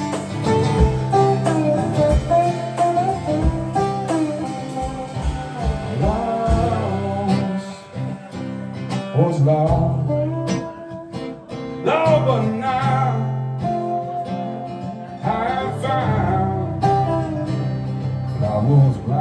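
Live country music: a strummed acoustic guitar with a drum kit playing along.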